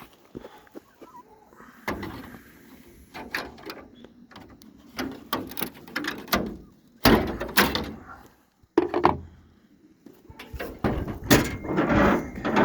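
Irregular knocks, clunks and rustling of hands working on a pickup truck while pulling a hood latch cable through. The loudest clunks come about 7 and 11 seconds in.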